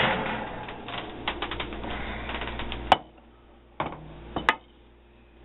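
A ceramic baking dish and the oven's wire rack rattling and scraping as the dish is pulled out. About three seconds in there is one sharp clack, then two lighter knocks.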